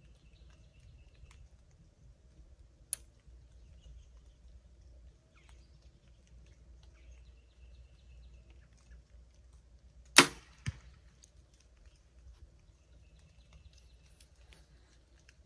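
A compound bow shot: one loud, sharp crack of the string and limbs as the arrow is released about ten seconds in, followed about half a second later by a fainter smack of the arrow hitting the target downrange. A single smaller click comes near three seconds in.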